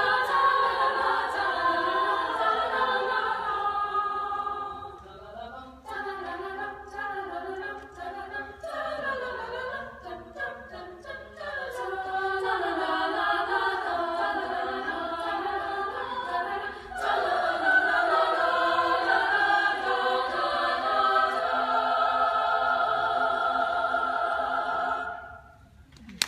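Women's choir singing in several parts, softer for a stretch in the middle, then louder, ending on a long held chord that stops shortly before the end.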